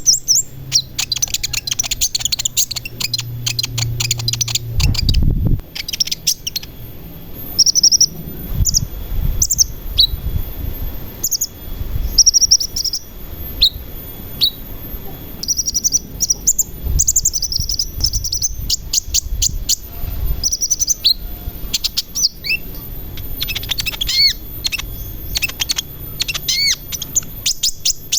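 Sunbird song: rapid high-pitched chirps and trills in quick runs, mixed with short downward-sweeping notes, continuing throughout.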